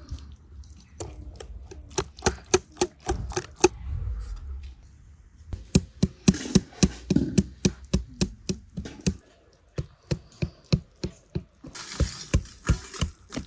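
Wire whisk clicking against a glass mixing bowl in quick, rhythmic strokes, about four a second, as it beats chopped figs and flour into a thick cake batter, with a short pause near the middle.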